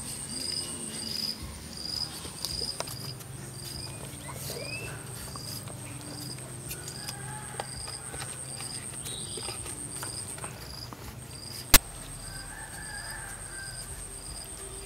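Crickets or similar insects chirping steadily: a pulsed chirp a little over twice a second over a continuous high trill. Soft scraping ticks of a knife shaving the peel off a green papaya, and one sharp click late on.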